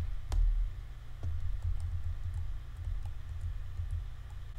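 A few light, separate clicks at a computer, made while stepping and repositioning a blur overlay in a video editor, over a low electrical-sounding hum.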